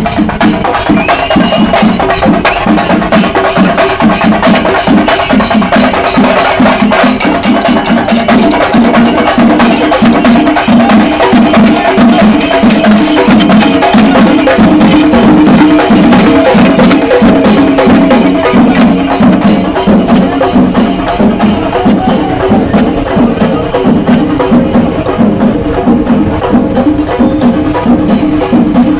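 Chendamelam: a chenda drum ensemble playing loud, fast, unbroken drumming.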